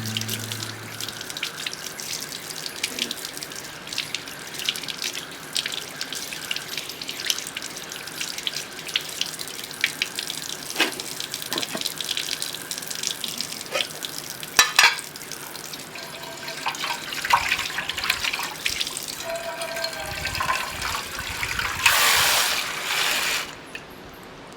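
Running water splashing, with many small clicks and knocks, as when something is washed under a tap. Near the end a louder rush of water stops suddenly.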